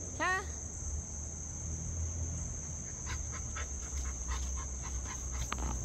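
A Rottweiler pawing and scraping at dirt and stones, a run of short scratchy strokes starting about halfway through, over a steady high chirring of crickets.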